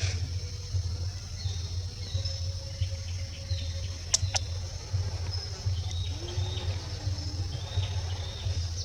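Outdoor tree-top ambience: a steady high-pitched insect drone with short, scattered bird chirps, over a steady low rumble. Two sharp clicks come close together about four seconds in.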